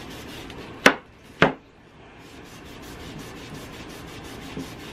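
Cloth rag rubbed in quick back-and-forth strokes along a freshly painted wooden frame, wiping back the paint. Two sharp knocks about a second in are the loudest sounds, followed by a short pause before the rubbing resumes.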